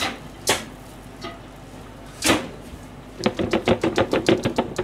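Plastic food storage container handled and its lid taken off: a few sharp knocks, then a quick rattling run of hollow plastic clicks near the end.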